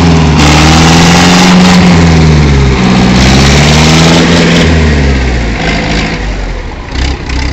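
Diesel tractor engines running flat out under heavy load, very loud, their pitch sagging and recovering as they pull against each other, then dropping away about five seconds in.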